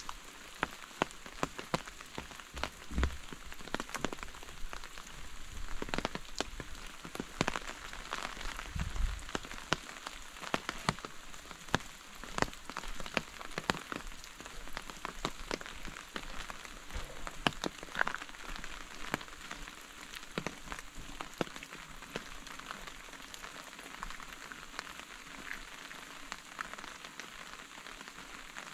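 Steady rain falling, with many sharp, close drop hits standing out over the hiss.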